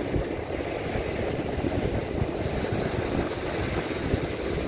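Strong wind buffeting the microphone, a fluttering low rumble, over the steady wash of surf breaking on the shore.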